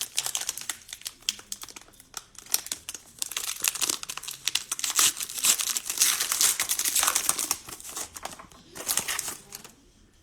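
Cellophane trading-card pack wrapper being torn open and crinkled by hand, in uneven bursts of crackling that die away just before the end.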